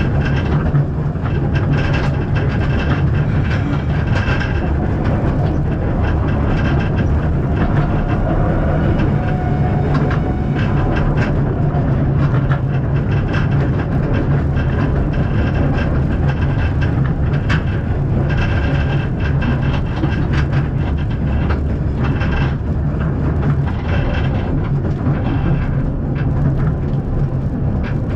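Narrow-gauge steam train running along the track, heard as a rider: a steady low rumble with frequent clicks and clatter from the wheels and carriage.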